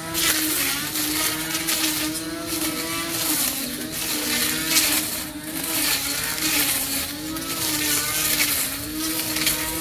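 Cordless battery-powered electric grass trimmer switched on and running, its motor whine wavering down and back up as the spinning blade cuts through tall grass and weeds, over a hiss of grass being slashed.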